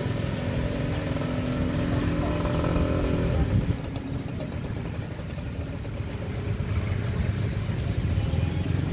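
A motor vehicle engine running close by, a steady hum over a low rumble, which drops away about three and a half seconds in and leaves a lower traffic rumble.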